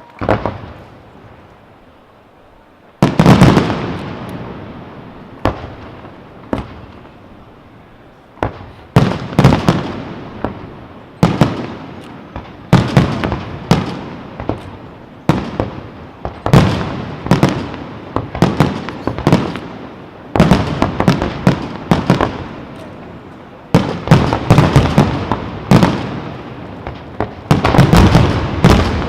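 Aerial fireworks display: shells bursting in loud booms with echo and crackle. After a lull of about three seconds a heavy bang sets off volleys of bursts, close together and repeating every second or two.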